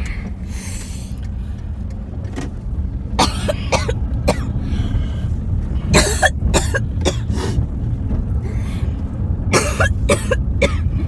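Several short bouts of coughing and throat clearing, in clusters about 3 s, 6 s and 10 s in, over the steady low rumble of the car.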